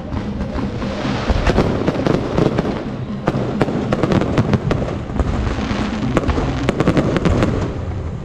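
Aerial fireworks shells bursting in quick succession, a dense run of overlapping bangs and crackles with heavier clusters three times.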